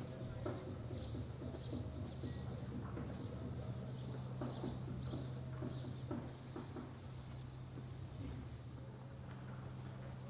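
A small bird chirping over and over, about two short chirps a second, thinning out after about seven seconds, over a steady low hum.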